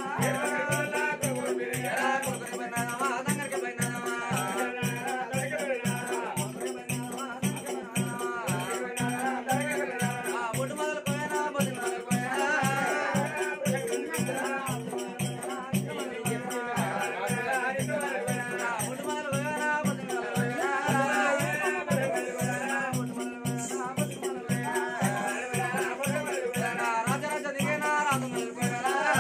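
Oggu Katha folk performance: a voice singing a wavering Telugu devotional melody over a steady held drone, with a fast, even jingling rhythm throughout.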